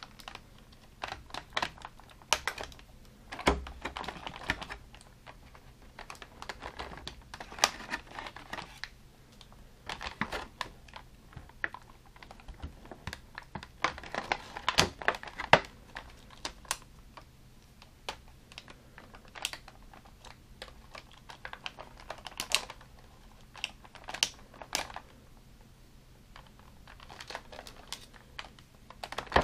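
Clear plastic packaging crinkling and rustling in irregular bursts, with sharp clicks and snips from small cutters as an action figure is freed from its plastic.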